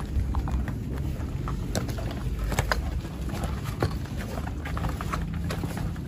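Irregular footsteps and rustling as people walk, over a low steady rumble on the microphone.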